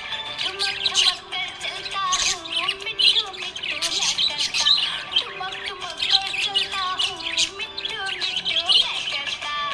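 Budgies chirping and chattering continuously in quick, overlapping chirps, with background music underneath.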